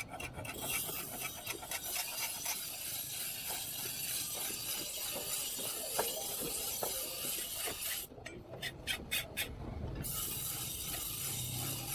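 Metal being filed by hand: a run of quick rasping strokes, then a steadier stretch of scraping, and near the end a group of about five separate strokes.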